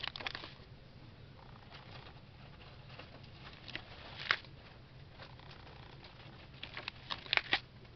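Paper pages of a ring-bound catalog being turned, with short crisp rustles near the start, about four seconds in, and a quick cluster near the end. A faint steady low hum runs underneath.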